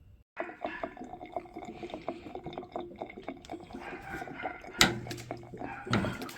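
Tools working on the water heater's pipe fittings to break the connection: a busy run of small metallic clicks and scrapes, with one sharp knock about five seconds in.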